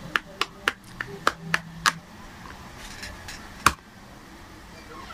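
A quick run of sharp plastic clicks and taps, about three or four a second, then after a pause one loud click: a wax crayon and a plastic toy knife knocking against a plastic toy cutting board.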